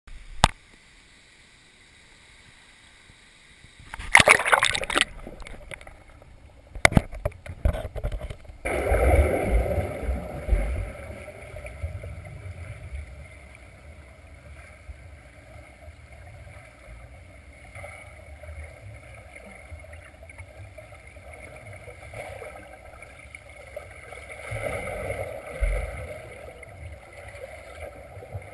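Swimming pool heard underwater through a GoPro's waterproof housing: a steady, muffled churning of water from swimmers in the lanes, swelling about ten seconds in and again near the end. Loud knocks and bumps in the first eight seconds as the camera housing is handled and set down.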